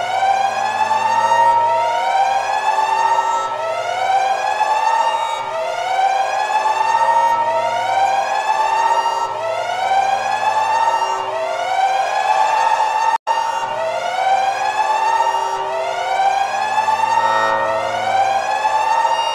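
Electronic wailing siren sound effect. Each wail sweeps up in pitch and eases off, repeating about every two seconds. The sound cuts out for an instant about thirteen seconds in.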